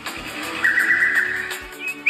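Music with a steady low beat, and a buzzy high-pitched sound lasting about a second in the middle.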